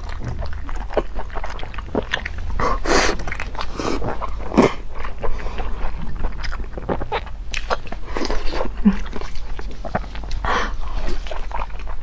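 Close-miked eating of a Chinese blood sausage: wet biting, chewing and slurping, with many small mouth clicks and smacks over a low steady hum.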